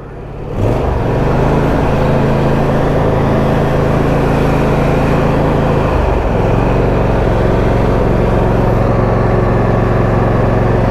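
Husqvarna YTA22V46 riding lawn tractor's 22 hp V-twin engine running steadily, its tone shifting slightly about six seconds in.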